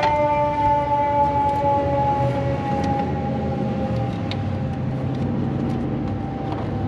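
Vehicle alarm sounding as one continuous two-tone note, not pulsing, that slowly sags in pitch and fades a little.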